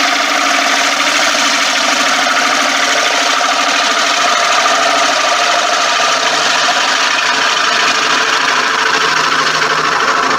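A turning tool cutting the inside of a spinning wooden bowl on a wood lathe, with a steady hissing cutting noise over the hum of the lathe: the finishing cut that cleans up a rough scraped surface.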